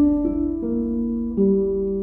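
Film score music: slow, sustained keyboard notes, the pitch moving to a new note a few times.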